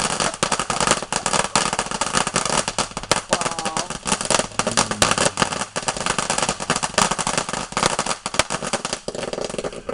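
Consumer fireworks going off in a continuous rapid crackle of small pops, with a brief whistle-like glide partway through.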